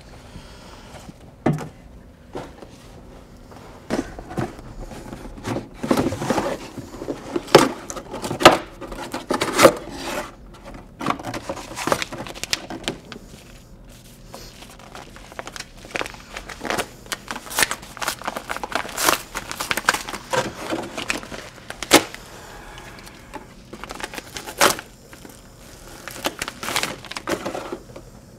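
A cardboard mailing box being opened and rummaged through: irregular rustling, crinkling and tearing of cardboard and paper, with sharp clicks and knocks.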